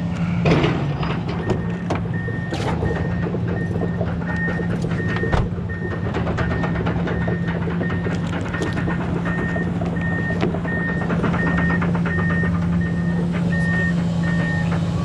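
A vehicle reversing alarm beeping steadily about twice a second over a steady low engine hum, with a few knocks.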